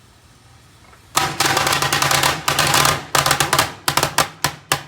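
Firecrackers going off inside a microwave oven: a fast, crackling string of bangs lasting about two and a half seconds, then a few separate bangs near the end.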